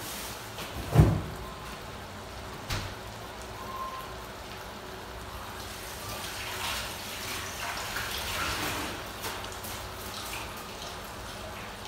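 Thick tomato sauce with chicken simmering in a steel wok, bubbling and popping in small irregular clicks. A dull thump about a second in is the loudest sound.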